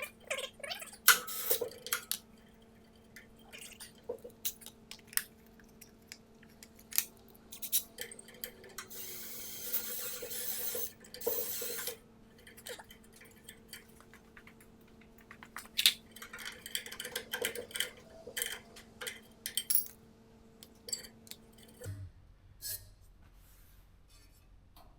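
Scattered metal clicks and taps from hand work on a coal furnace's heater-box fan housing, removing its damper flap. There is a few seconds of harsher scraping noise near the middle. A steady low hum runs under it and cuts off suddenly near the end.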